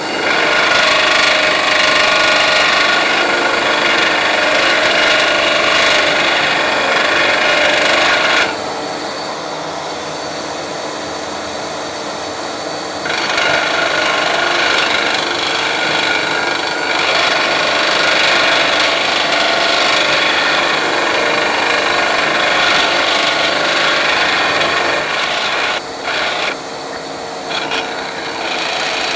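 Coarse ceramic Shapton sharpening stone held by hand against the spinning steel disc of a Record Power DS300 disc sander, grinding with a steady hiss over the running motor, to true a disc that is dished inward and has side runout. The grinding drops away for about four seconds a third of the way in, leaving the sander running, then resumes, with a couple of brief breaks near the end.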